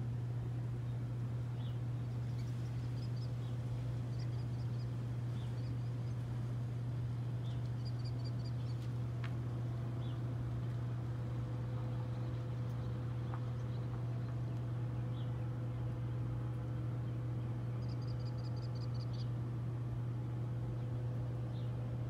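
A steady low hum throughout, with birds chirping over it: single short chirps every second or two and a few quick high trills, the longest near the end.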